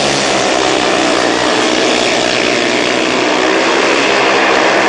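Several 500 cc single-cylinder speedway motorcycles racing under power, their engines a loud, steady rasp with overlapping notes that rise and fall slightly.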